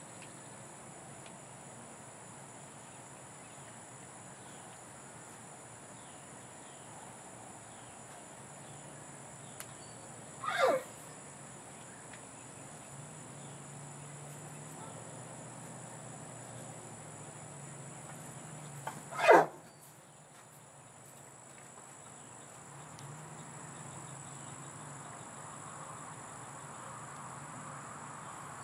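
Two short, loud horse squeals about nine seconds apart, the second the louder, from horses sizing each other up on first meeting. A steady chorus of crickets goes on throughout.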